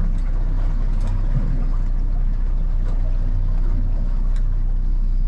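Boat's outboard engine running steadily at low speed, a constant low drone heard from inside the boat's cabin.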